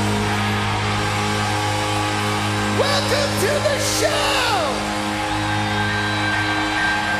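Music: a steady droning hum, with a few sliding, falling tones and brief noisy flares about three to four seconds in.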